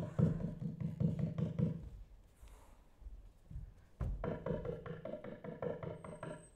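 Rapid, hard knocking on a door in two bursts, about five knocks a second: one at the start lasting about two seconds, and a longer one starting about four seconds in. It is someone outside knocking because the doorbell is not working.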